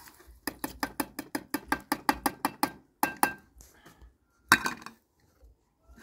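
A metal utensil clinking rapidly against a cooking pot, about six ringing strikes a second for a couple of seconds, then a few separate clinks, one of them louder.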